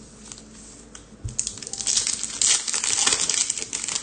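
A pack of soccer trading cards being handled and worked open by hand. About a second and a half in, a dense run of crinkling and fine clicking begins and goes on to the end.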